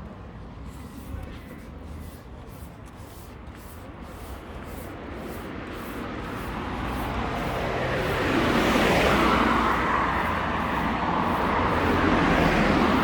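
Street traffic: the noise of a vehicle drawing near and passing grows from about halfway through and stays loud to the end, over faint regular footsteps.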